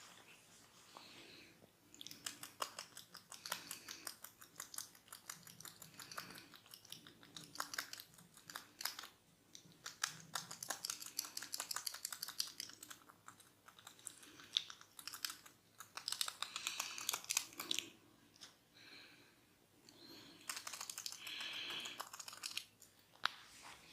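Close-miked hair cracking and scalp scratching: a barber's fingers rubbing and twisting hair against the scalp, giving rapid dense crackling in several bursts of a few seconds with short quieter gaps between.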